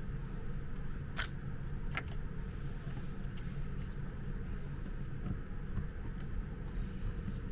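Two sharp plastic clicks about a second in, from handling an extension cord's plastic socket and a screwdriver, then faint small ticks as a screwdriver turns a screw in the cord's plug, over a steady low hum.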